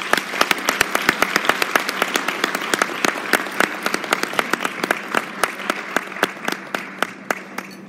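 Conference audience applauding at the close of a talk: dense clapping that thins out and stops near the end.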